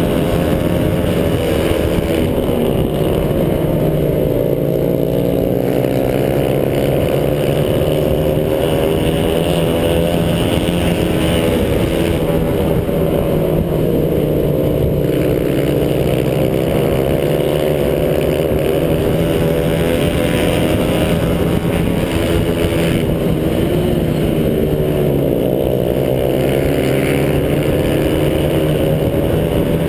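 Honda CRF120 pit bike's single-cylinder four-stroke engine running hard around a flat-track oval, its pitch climbing on the straights and dropping back into the turns about every ten seconds.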